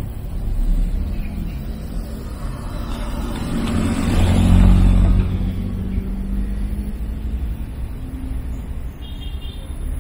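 A motor vehicle passing close by: its engine and tyre noise swell to a peak about four to five seconds in and then fade, over a steady low traffic rumble.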